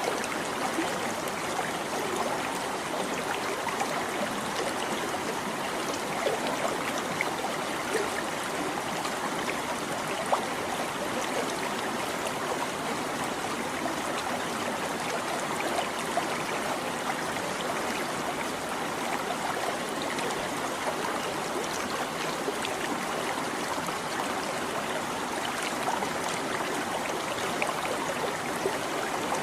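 Stream water babbling and trickling steadily, with small splashes now and then.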